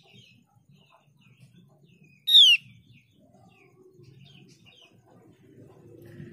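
Female Javan grey-throated white-eye (opior jawa) calling: soft scattered chirps, then one loud, short, down-slurred call about two seconds in.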